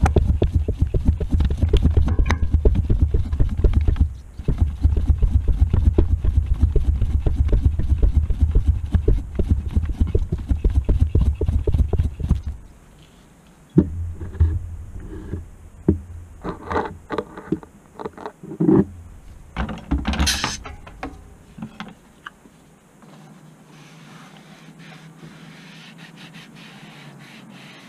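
Topeak JoeBlow Sport floor pump worked in rapid steady strokes to inflate a tubeless mountain-bike tyre, stopping about twelve seconds in. Then scattered clicks and knocks as the pump head is handled, a brief hiss about twenty seconds in, and faint quiet sound near the end.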